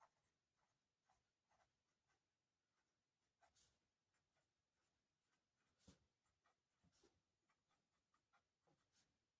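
Very faint scratching of a 0.9 mm BIC Xtra Strong mechanical pencil's graphite lead writing on paper, in scattered short strokes. Slightly more distinct strokes come about three and a half, six and seven seconds in.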